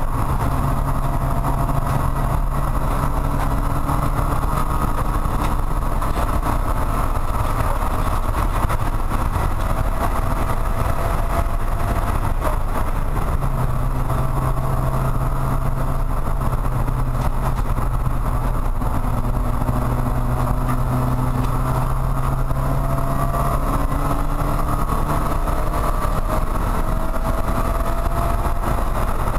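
Porsche 944 Spec race car's four-cylinder engine running hard at a steady speed of about 80 mph, heard from inside the cabin along with road and wind noise.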